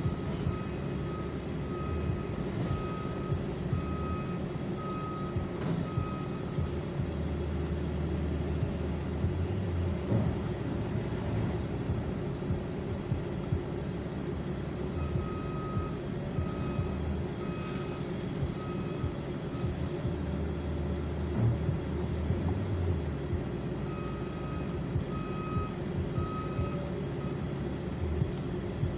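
Backup alarm of a New Holland L328 skid steer beeping at one pitch, about one beep a second, in three spells as the machine backs up, over the steady hum of engines running.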